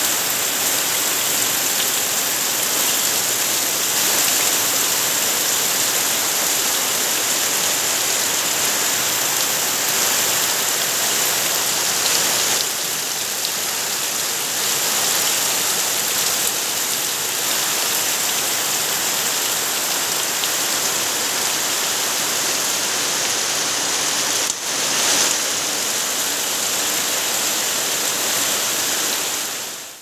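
Heavy monsoon rain pouring steadily onto dense foliage and palm leaves, a continuous loud hiss of falling water.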